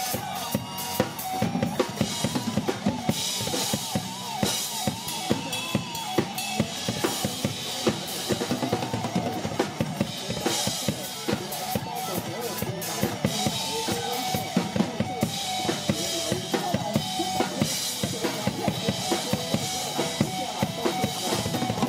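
Drum kit played live at a fast, steady pace: kick drum, snare and cymbal hits throughout, over a recorded pop-rock backing song.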